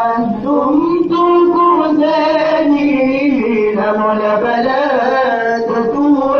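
Male voices, men and boys together, singing a qaswida, a Swahili Islamic devotional song, with a lead singer on the microphone; the melody moves in long held notes that bend gently up and down.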